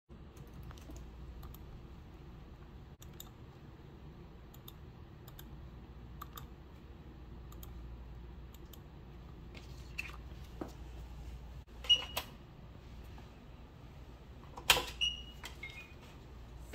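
Light, irregular clicks of a laptop's keys or touchpad over a low room hum. About twelve and fifteen seconds in come louder sharp clacks, each followed by a short high tone.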